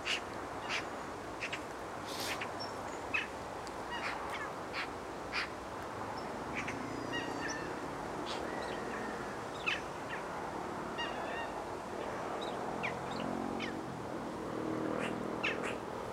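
Waterbirds calling across a lake: scattered short, sharp calls throughout, and a run of lower, honking calls in the last few seconds, over a steady background hiss.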